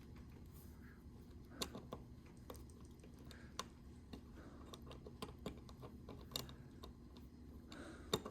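Faint, scattered small clicks and taps of metal ratchet parts as the gear is fitted back into a Craftsman ratchet head, a few clicks a second apart.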